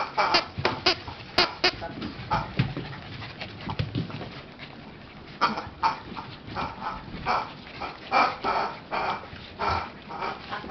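Two young American cocker spaniels play-fighting, giving short yips and growls in quick, irregular bursts, with a quieter stretch of a couple of seconds in the middle.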